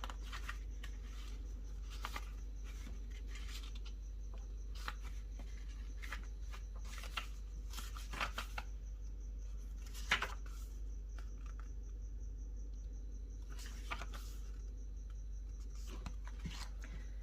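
Pages of a card guidebook being leafed through: short paper rustles and soft handling clicks, scattered every second or two, over a steady low hum.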